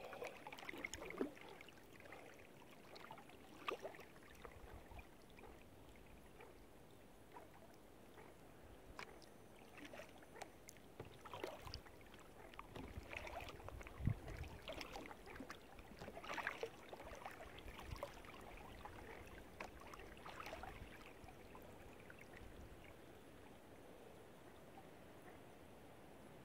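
Faint kayak paddling: the paddle dipping and dripping water in scattered light splashes, with a soft thump about fourteen seconds in.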